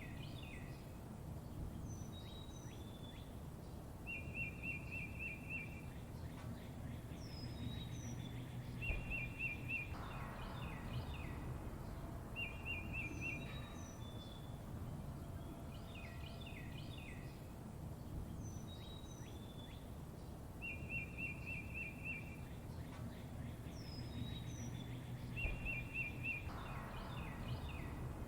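Small songbirds calling and chirping over a steady low background rumble. A fast, buzzy trill about a second and a half long recurs several times, with short high descending chirps and clusters of quick notes between.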